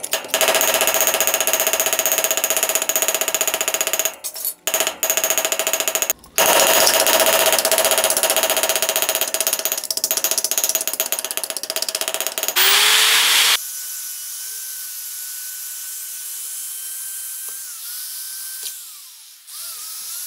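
Rapid hammer blows on a steel anvil, flattening a strip of aluminium aircraft sheet, with a steady metallic ring, pausing twice briefly. After about thirteen seconds a short hiss, then an electric hand drill running with a sanding disc on the aluminium, a steady motor whine that dips briefly under load near the end.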